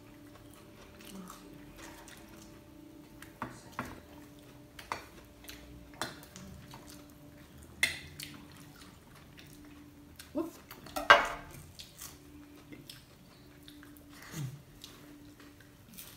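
Knife and fork clinking and scraping on a plate, a dozen or so scattered short clicks, the loudest about eleven seconds in, over a faint steady hum.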